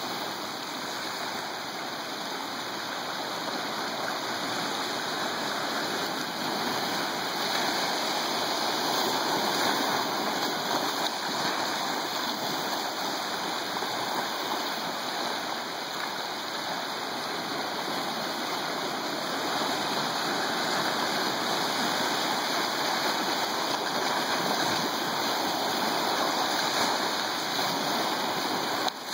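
Ocean surf washing over shoreline rocks: a steady rushing of water that swells and eases slowly.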